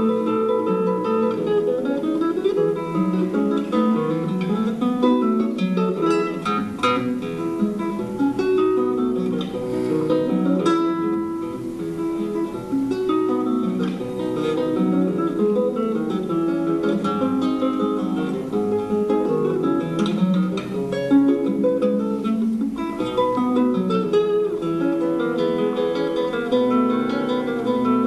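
Solo classical guitar playing an Argentine gato: a plucked melody over bass notes, with a few strummed chords along the way.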